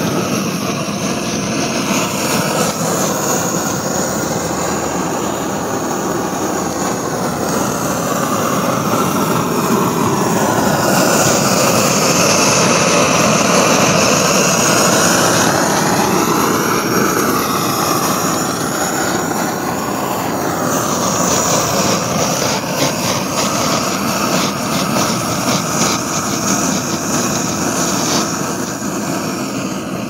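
Otto Bernz plumber's furnace, a pressurized liquid-fuel burner, running with a steady rushing jet of flame. The noise swells a little in the middle and shifts in tone.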